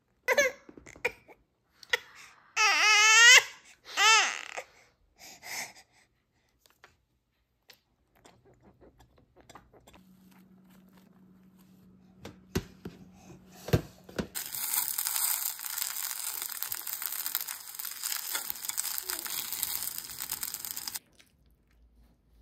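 An infant's high-pitched squeals and babbling: several short, loud sliding calls in the first few seconds. Later a steady hiss starts abruptly and cuts off about seven seconds later.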